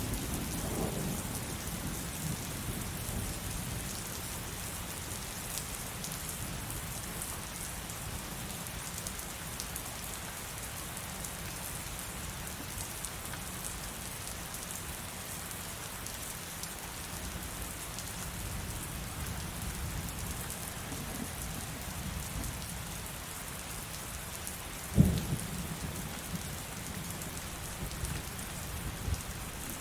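Steady heavy rain, with a low roll of thunder dying away at the start. About five seconds before the end a single sudden, sharp crack of thunder is the loudest sound, followed by a few faint knocks.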